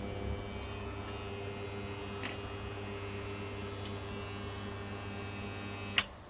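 Steady electrical mains hum from the energised 400 V setup, with a few faint ticks, cut off by a single sharp click near the end.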